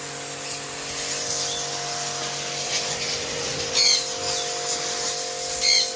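Electric pressure-washer pump running with a steady motor hum while its water jet sprays with a steady hiss. Birds give two short calls, about four seconds in and again near the end.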